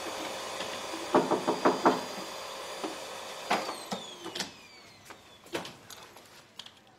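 A quick run of about five sharp knocks, then scattered clicks and clatter over a steady hiss that fades out, with a faint falling whine in the middle.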